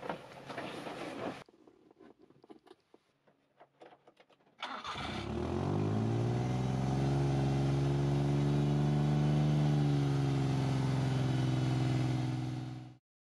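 Suzuki Carry kei truck's carbureted 660cc three-cylinder engine started cold on the manual choke. After a few faint clicks, it catches about four and a half seconds in, rises quickly in pitch and settles into a steady idle. The sound stops abruptly near the end.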